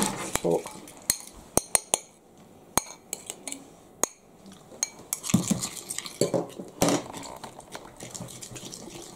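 Fork and spoon clinking and scraping against a glass mixing bowl while mashing blue cheese into a creamy dressing, in sharp irregular clinks.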